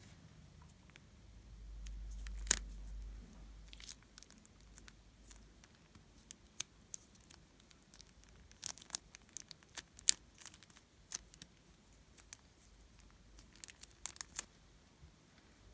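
Glossy slime being worked by hand, giving scattered sticky clicks and crackles, with one sharper click about two and a half seconds in.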